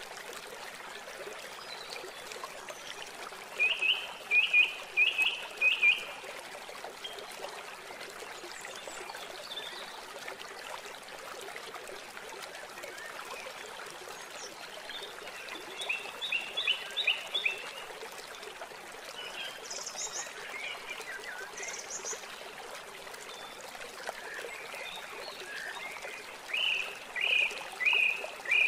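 Steady sound of running water, like a trickling stream, with three short runs of five or six high chirping calls, roughly ten seconds apart.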